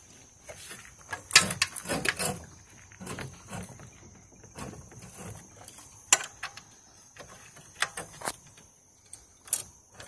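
Handling clicks and knocks from the pull cord and plastic T-handle being fitted to the recoil starter of a Honda GX160 5.5 HP engine: scattered sharp taps, the loudest cluster about a second and a half in, then a few single knocks later. A steady high thin hum runs underneath.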